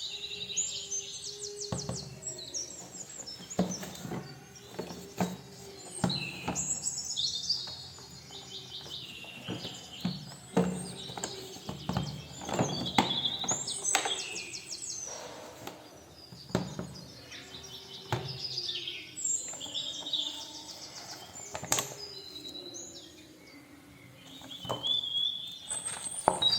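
Birds chirping and trilling in quick high phrases, with scattered sharp knocks and clicks in between.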